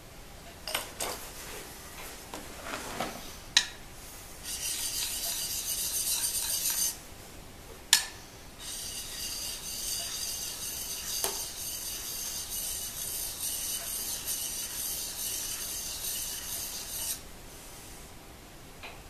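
Steel chisel being rubbed on a handheld diamond sharpening stone: a few sharp clicks as the blade is set on the plate, then a steady high scraping for about two seconds. After a pause and a click, the scraping runs on for about eight seconds more.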